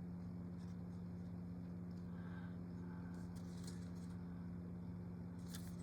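Steady low electrical hum, with a few faint short scratches of a paint marker's tip on a plastic model part, about three seconds in and again near the end.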